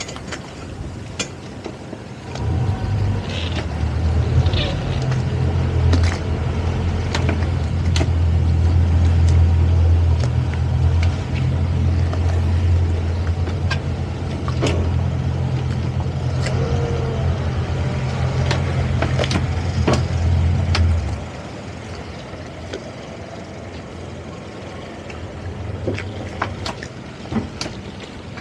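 Towboat's outboard engines throttled up, a loud, steady low rumble under load while maneuvering the boat it is towing. The rumble starts a couple of seconds in and drops back to a quieter idle about three-quarters of the way through, with occasional light clicks.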